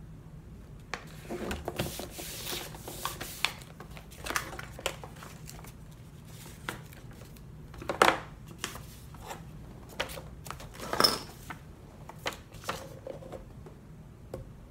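Paper envelopes being handled and folded on a table: scattered rustles, slides and soft knocks, the sharpest about eight and eleven seconds in, over a low steady hum.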